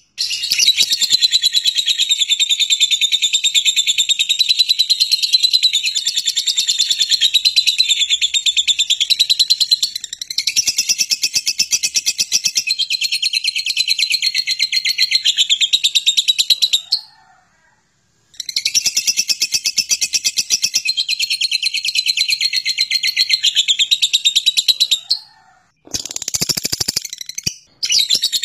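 Lovebird ngekek: a long, rapid, high-pitched chattering trill of many notes a second. It runs unbroken for about seventeen seconds, breaks off for a second, runs again for about seven seconds, and starts once more just before the end after a short pause.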